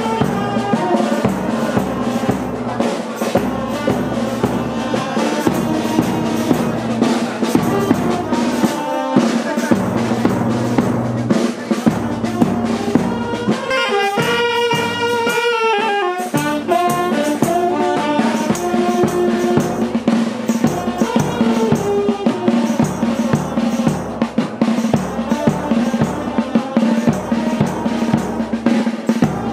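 Music with a steady drum-kit beat (snare, bass drum and rimshots) under a brass melody; a brass phrase stands out clearly about halfway through.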